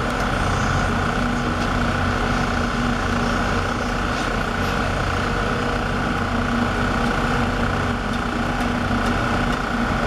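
Truck-mounted concrete boom pump's diesel engine running at a steady drone while it pumps concrete onto the slab.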